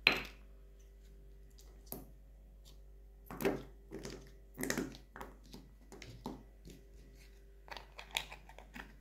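Small plastic slime pots and lids being handled on a table: irregular knocks and clicks, the sharpest one right at the start.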